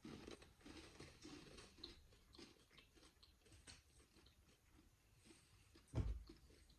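Faint chewing and crunching of a square of milk chocolate with cornflakes, with small irregular crackles; a dull thump about six seconds in.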